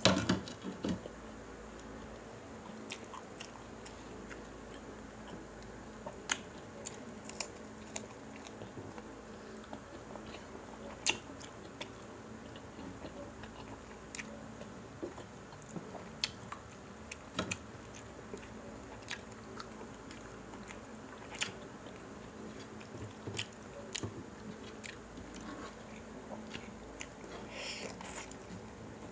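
Two people eating crispy pata (deep-fried pork knuckle) with rice and sliced fruit: chewing, with scattered sharp crunches and clicks and a louder bite right at the start.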